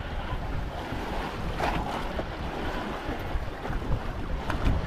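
Wind buffeting the microphone and waves washing against a small fishing boat on a rough sea, with a couple of brief splashes.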